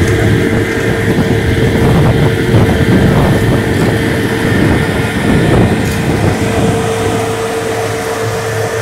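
Caterpillar PM102 cold planer running: a loud, steady engine drone with a constant mid-pitched whine over it.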